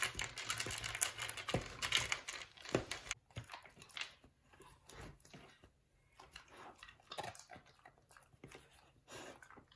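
A dog crunching dry kibble and nosing it out of the ridges of a plastic Outward Hound Fun Feeder slow-feeder bowl, in a run of quick small clicks and crunches. The sounds are busy for about the first three seconds, then come sparser and quieter.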